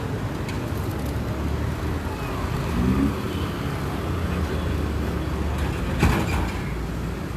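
Road traffic noise: a steady low rumble of motor vehicles, with a short rising engine note midway and a brief sharp knock about six seconds in.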